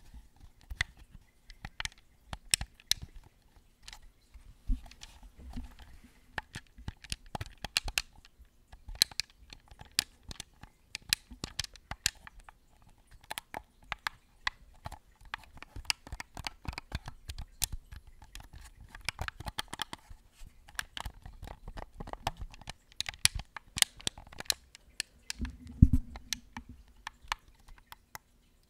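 White Xbox One controller handled close to the microphone: quick, irregular plastic clicks and taps from its buttons and casing, with some scratching. One louder knock comes near the end.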